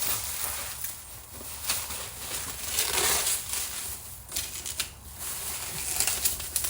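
Packing material rustling and crinkling as it is handled, with scattered clicks and knocks.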